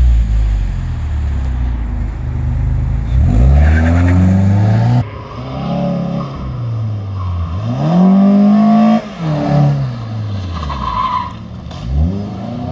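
Mazda 6 engine revving hard as the car launches, its pitch dropping and then climbing again. After a cut about five seconds in, it is driven through an autocross course, the engine rising and falling in revs over and over as it accelerates and lifts between cones, with the tyres squealing.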